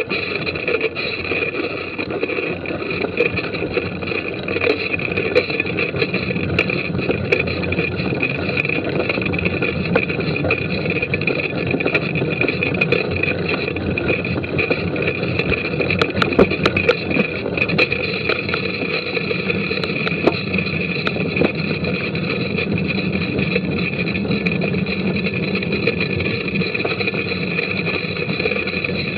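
Wind and riding noise picked up by an action camera on a mountain bike: a steady rush with rattles and knocks from the bike over the trail, and a cluster of sharp knocks a little past the middle.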